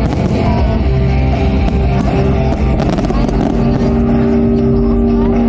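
Loud music with long held notes and a heavy low end, with fireworks shells bursting over it now and then.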